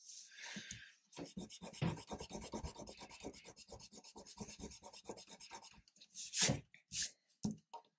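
A rubber eraser scrubbing pencil lines off drawing paper in quick back-and-forth strokes, several a second, then two louder short scuffs near the end.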